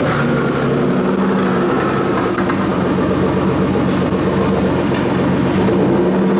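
Nissan Silvia S15's engine and exhaust running at steady revs while driving, an even droning hum with a fine regular pulse that holds its pitch.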